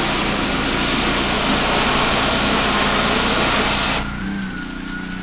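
Pressure washer spraying a high-pressure water jet against a wooden pergola's beams, a loud steady hiss over the running engine and pump. About four seconds in the spray cuts off suddenly as the trigger is released, leaving the pressure washer's engine running on with a steady hum.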